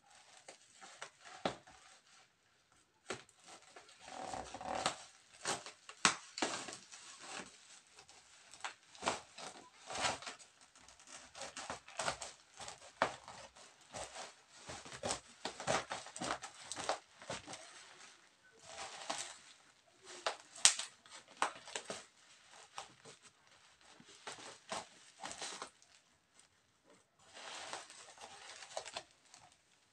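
Scissors snipping and cutting through a parcel's black plastic wrapping and packing tape, the plastic crackling and tearing in irregular snaps.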